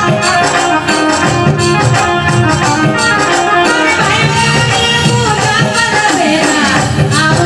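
Rajasthani devotional folk song performed live, with sustained instrumental accompaniment and steady rhythmic percussion; a singing voice comes in from about four seconds in.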